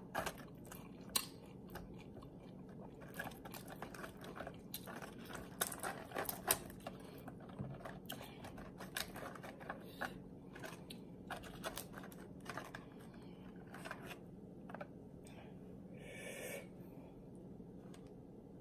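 Close-up crunching and chewing of loaded nachos: tortilla chips and Flamin' Hot Doritos under cheese and toppings, with irregular crisp crunches. There is a short rustle about 16 seconds in.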